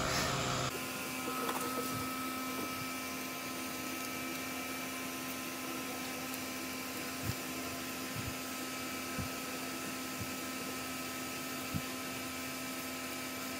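Steady machine hum with a few fixed tones, and four faint light ticks in the second half as the laser-cut paper stencil is handled.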